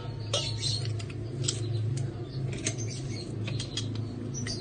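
Metal garlic press being squeezed over a stainless steel bowl, crushing garlic cloves, with irregular clicks from the press's hinged handles and the garlic. A steady low hum runs underneath.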